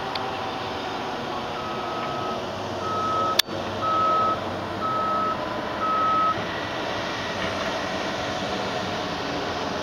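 Cessna 172 engine and cockpit noise, a steady drone, with five short, evenly spaced electronic beeps about a second apart and one sharp click among them.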